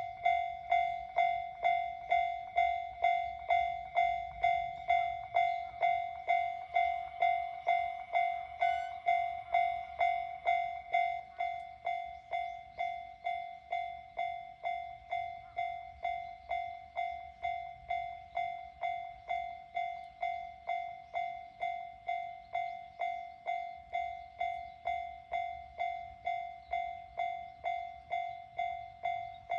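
Japanese railroad crossing warning bell clanging steadily, about two strikes a second, each a ringing electronic tone. The bell drops a little in loudness about eleven seconds in.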